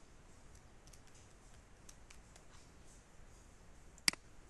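Faint, scattered keystrokes on a computer keyboard as a password is typed, then a single sharp mouse click near the end.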